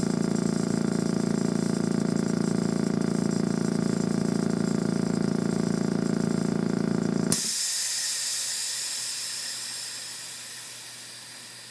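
Exercise machine's air compressor running with a steady hum, then cutting off with a click about seven seconds in, followed by a hiss of compressed air being released from the resistance system, fading away.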